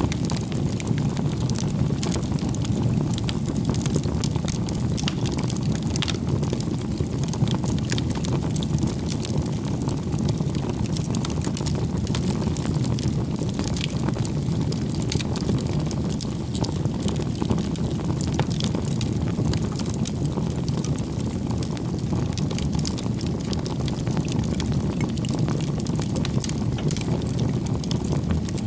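Wood bonfire burning: a steady low rush of flames with frequent small crackles and pops of the burning wood.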